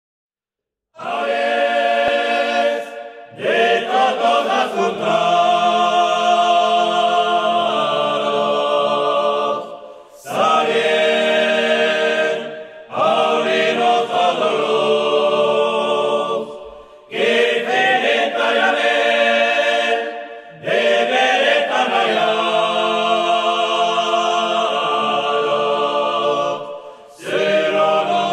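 Men's a cappella group singing a traditional Pyrenean polyphonic song in Gascon (Béarnais), several voices holding close harmony. The singing starts about a second in and moves in long phrases broken by brief pauses for breath.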